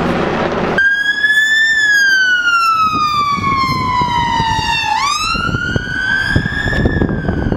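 Helicopter rotor noise for the first moment, then an ambulance siren sounding a slow wail. Its pitch falls steadily for about three seconds, sweeps back up quickly and starts to fall again. Road traffic runs beneath it.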